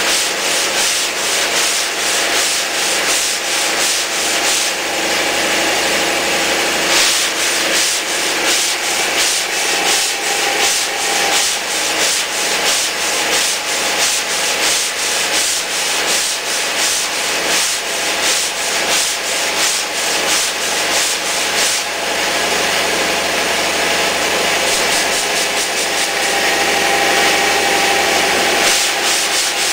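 Sandpaper on a long hand sanding block rubbed back and forth in quick, even strokes over cured Evercoat body filler on a steel truck cab roof. This is block-sanding the filler level to take out low and high spots.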